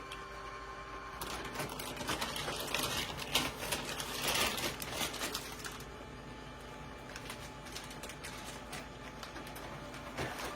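Canon laser printer running a print job: its motors and gears whir with rapid clicking as it feeds the page, busiest from about two to six seconds in.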